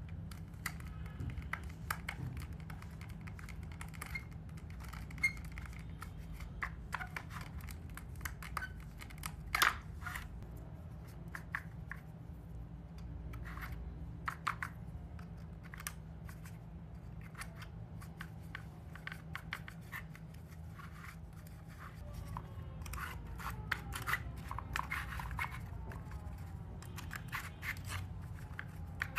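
Scattered small clicks, taps and scrapes of a screwdriver and rusty metal clock-case parts being handled and taken apart on a marble floor, over a low steady hum. The sharpest click comes about ten seconds in.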